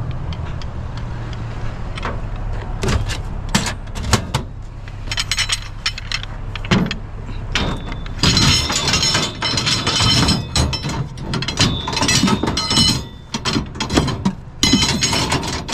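Scrap metal being handled: scattered knocks and clinks, then a long stretch of dense metallic clattering and rattling about halfway in and again near the end, over a steady low hum.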